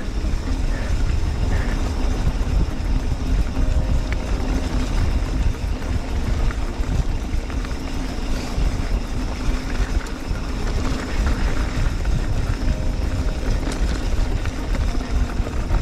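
A mountain bike rolling down a dirt singletrack at speed: steady wind rumble on the microphone over the noise of the tyres on the trail.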